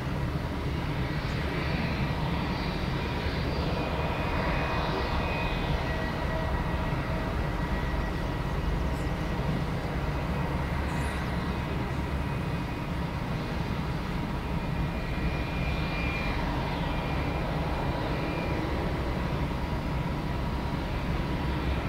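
Boeing 747-400 freighter's four jet engines at low taxi power, a steady rumble with a high whine held at a few fixed pitches, as the jumbo taxis after landing.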